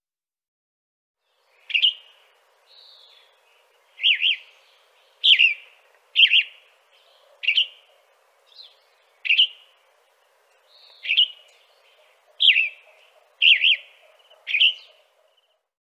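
A bird calling repeatedly: about a dozen short, sharp chirps roughly a second apart, some given as quick doubles, starting after a second and a half of silence, over a faint steady background hum.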